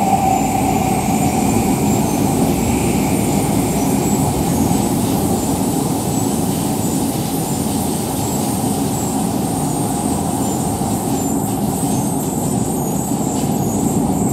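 Live electronic noise music: a loud, steady wall of low, rough noise with a thin high whine above it and no beat.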